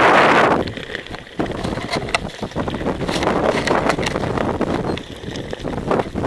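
Wind buffeting the camera's microphone on a river raft, loudest in the first half-second, with scattered knocks as the camera is handled.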